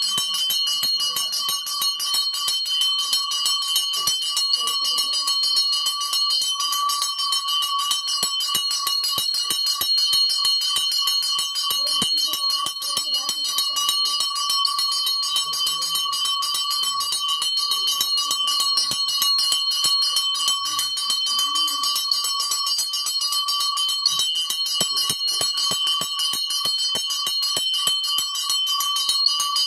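Brass hand-held puja bell rung fast and without pause during aarti: a steady, continuous ringing with one main note and a higher one above it.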